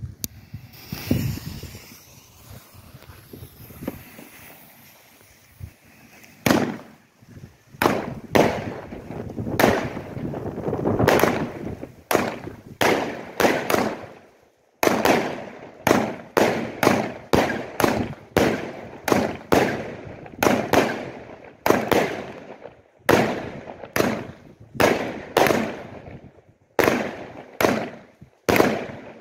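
Consumer firework battery firing. It starts with softer hissing and crackling, then sends off a long series of loud bangs that come in quick succession in the second half, more than one a second.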